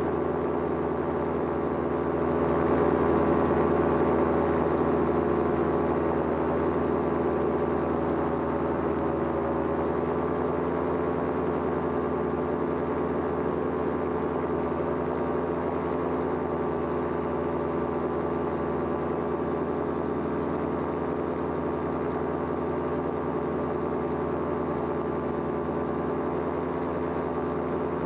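Paramotor engine and propeller running steadily in flight, a little louder for a few seconds near the start.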